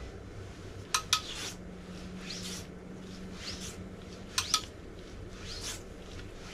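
Metal hand tools clinking and being handled at an engine block: two pairs of sharp clinks, about a second in and again past four seconds, with a few short scraping swishes between them.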